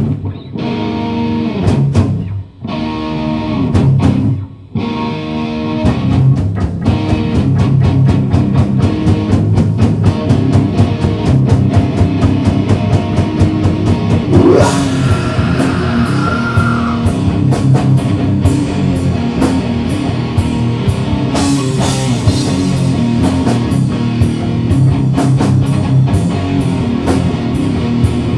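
Live rock band opening a heavy original song: distorted electric guitar chords played in short stop-start hits for about the first six seconds, then drums and bass come in and the full band plays on steadily. About halfway through, a high note slides up and is held for a couple of seconds.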